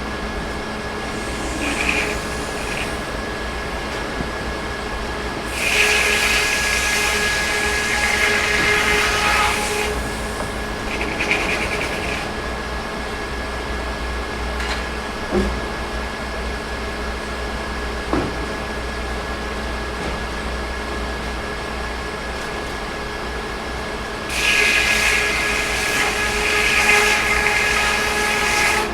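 Sawmill running steadily, with three louder stretches as the saw cuts pine logs: about four seconds starting some six seconds in, a brief one around eleven seconds, and another of about four seconds near the end.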